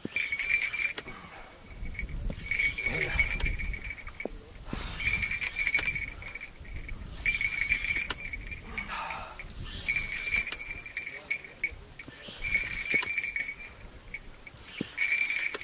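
A fishing reel being cranked in short bursts, its gears whirring for about a second at a time, every two and a half seconds or so, as a hooked catfish is pumped in on the rod.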